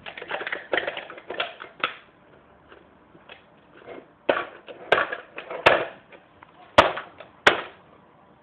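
Plastic clattering and knocking from a toy Dyson ball vacuum being handled, with a few sharp clacks in the second half.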